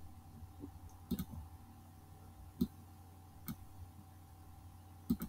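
A computer mouse clicking a handful of times, single sharp clicks spaced a second or more apart, over a faint steady electrical hum.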